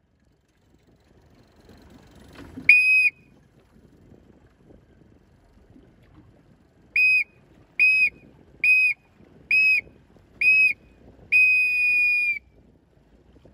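Race-start whistle sounding a countdown: one blast, then five short blasts about a second apart for the last seconds, and a long blast of about a second marking the start. Faint wind and water noise underneath.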